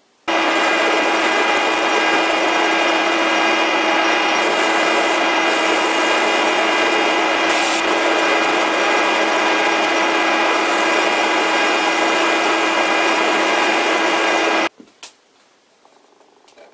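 Metal lathe running and cutting a taper on an old tractor bolt held between centers: a loud, steady many-toned whine of the lathe with the scrape of the tool in the cut. It cuts off abruptly about 15 seconds in, leaving only faint handling clicks.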